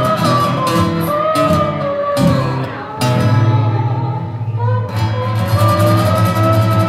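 Live acoustic band playing: strummed acoustic guitars over upright bass notes, with a long held melody line on top. The playing gets fuller and louder about three seconds in.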